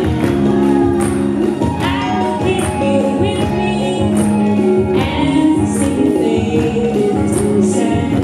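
Live folk-rock band playing: electric guitar, keyboards, upright bass and a drum kit with cymbal and tambourine-like hits on the beat, and voices singing along.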